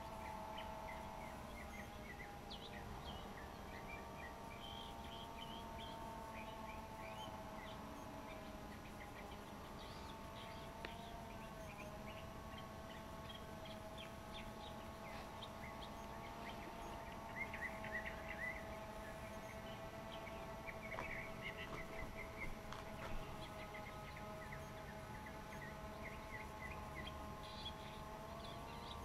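Faint, steady hum of a DJI Phantom 2 quadcopter's propellers in flight, several close tones that waver slightly as the motors adjust. Birds chirp over it, most busily in the second half.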